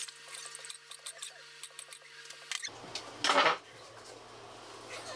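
Kitchen knife cutting a tomato on a plastic cutting board: scattered light taps and clicks, with one louder short rush of noise a little after three seconds in.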